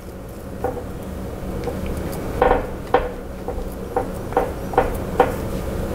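Silicone spatula knocking and scraping against a ceramic baking dish while spreading a soft ricotta cheese layer: about eight light, irregular knocks over a steady low hum.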